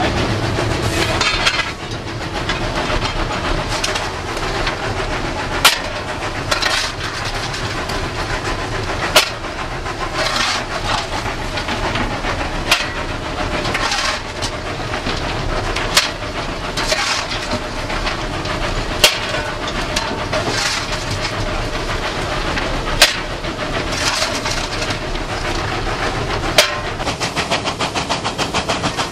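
Cab noise of NSWGR 59 class steam locomotive 5910 running under way, a steady din from the engine and the open fire. Sharp metallic clicks come about every three seconds, and near the end the locomotive's rapid exhaust beats come through.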